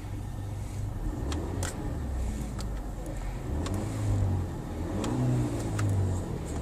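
Skoda 1.8 DSG engine heard from inside the cabin, revved up and back down, with a howl that rises and falls with the revs. The howl comes on when the air conditioning is switched on and cannot be heard under the bonnet. A few light clicks sound through it.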